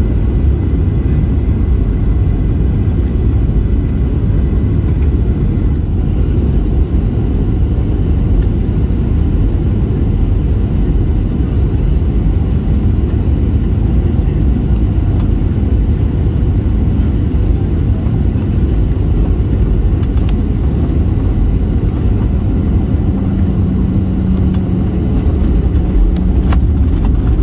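Steady low rumble of a Boeing 737 heard from inside the passenger cabin: engine and airflow noise. A few light clicks come near the end.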